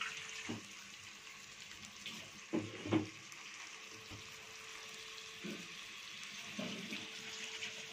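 Marinated chicken leg pieces sizzling as they fry in oil in a kadai, a steady hiss, with a couple of louder scrapes of the steel spatula about three seconds in.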